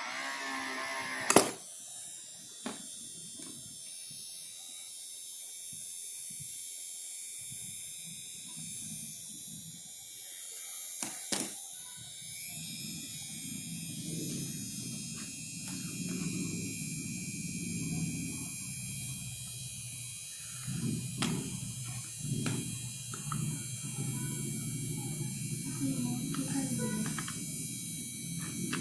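Small DC motor of a homemade mini drill whining, cut off by a loud click about a second in, followed by scattered clicks and knocks of handling.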